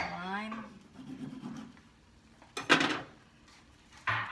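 Kitchen handling sounds as a knife cuts a lime: a short, loud clatter about two and a half seconds in, and a brief scrape near the end.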